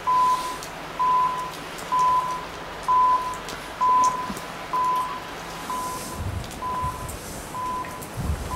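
Railway level-crossing warning signal beeping at a steady pace of about one tone a second, a single mid-pitched beep repeated. Low rumbling comes in near the end.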